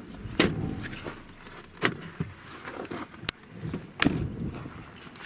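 Handling noise from a body-carried camera: clothing rustling and rubbing against it, with four sharp knocks at uneven intervals.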